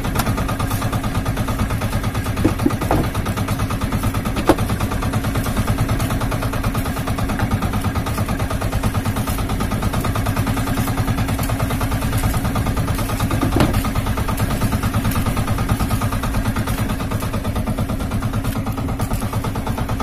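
Outrigger fishing boat's small engine running steadily at an even speed, with a few short knocks.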